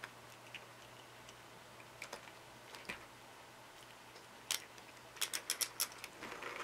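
Light clicks and ticks as a cat handles a small pull-string toy mouse, with a quick run of about five sharp ticks near the end.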